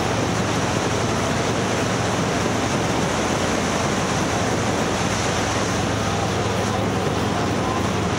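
A vehicle travelling at steady speed: a constant low hum under an even, continuous rush of road and wind noise.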